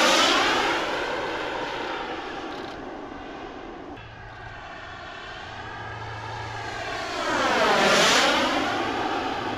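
Kingtech K102G4+ turbojet of a JMB MB-339 model jet flying past twice, its jet noise swelling and fading: loudest at the very start and again about eight seconds in.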